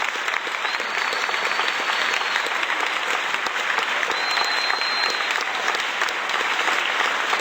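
Large crowd applauding: dense, steady clapping, with a faint high whistle twice.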